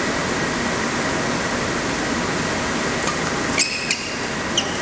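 Steady background noise of a badminton hall during a rally. About three and a half seconds in there is a short, sharp squeak of a player's shoe on the court floor, and a shorter squeak about a second later.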